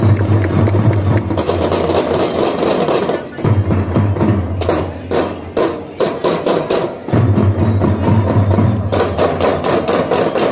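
Kindergarten drum band playing: drums and other percussion struck rapidly in rhythm over music with a steady low bass note, which drops out briefly twice.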